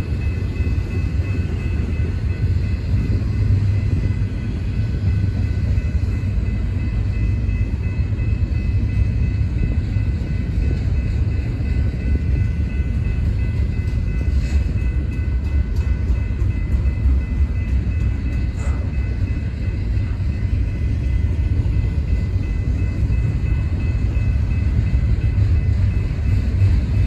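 Double-stack intermodal freight cars rolling past on steel rails: a steady low rumble with a faint, thin high whine above it.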